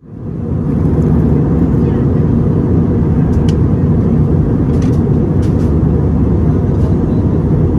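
Steady low roar of an airliner cabin in flight: engine and airflow noise, swelling up within the first second.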